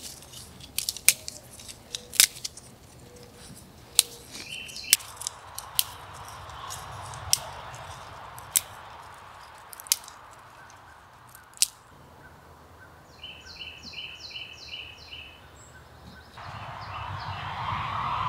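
Small dry twigs snapped by hand, about a dozen sharp snaps, irregularly spaced, over the first twelve seconds. A bird then sings a quick run of about six chirps, and a steady rushing noise starts near the end.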